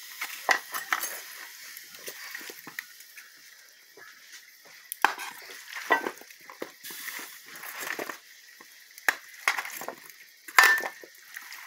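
Metal spoon scraping and clinking against an aluminium roasting pan as potato chunks and onion rings are spread over raw chicken pieces, in irregular knocks and scrapes. The loudest clink, with a short ring, comes about a second before the end.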